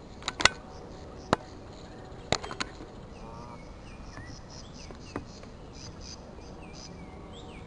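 A few sharp knocks in the first three seconds, then small birds chirping and twittering in short high notes through the rest.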